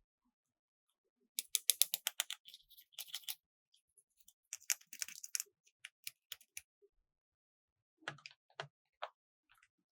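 Sharp clicks and taps from toys and packaging being handled: a fast run of about ten clicks a second and a half in, more scattered clicks through the middle, and three duller knocks near the end.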